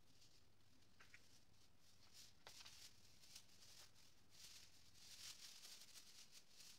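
Faint rustling of an artificial Christmas tree's plastic branches being handled as it is taken apart, in a series of short bursts from about two seconds in, with a couple of light clicks.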